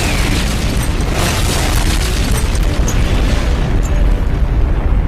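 Loud explosion sound effect, drawn out into one long, unbroken blast with a deep rumble.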